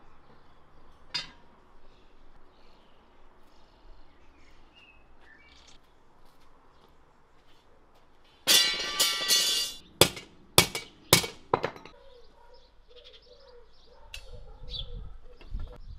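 Faint bird chirps, then a loud ringing metal scrape lasting about a second, followed by four sharp metal clanks in quick succession. A low rumble builds near the end.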